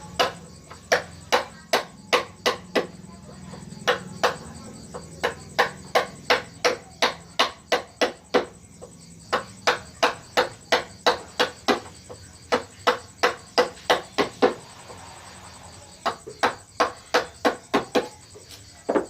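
Wooden mallet striking a carving chisel into wood: runs of sharp, even taps about two to three a second, broken by short pauses.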